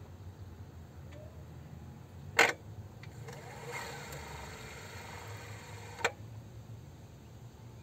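Hyundai Ioniq's electric air-conditioning compressor: a sharp click about two and a half seconds in, then a whine that shifts in pitch for about three seconds and is cut off by a second, smaller click, over a low steady hum.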